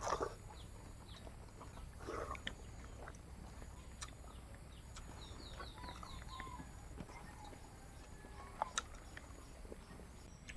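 Faint eating sounds: chewing and biting into raw cucumber and rice eaten by hand, with small scattered clicks. A bird gives a quick run of high chirps about halfway through, and farm animals can be heard in the background.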